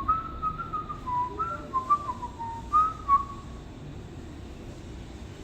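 A person whistling a short, wandering tune of a dozen or so notes, which stops about three and a half seconds in, leaving a low background hum.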